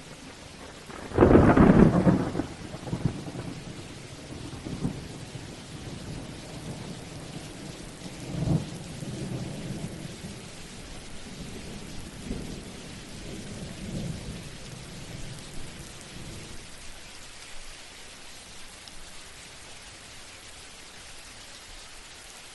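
Summer thunderstorm: a sudden loud thunderclap from a close lightning strike about a second in, followed by rolling thunder that comes back several times and dies away, over steady rain.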